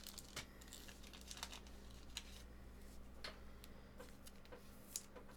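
Faint scattered clicks and rustles of trading cards being handled and slid apart, over a low steady hum.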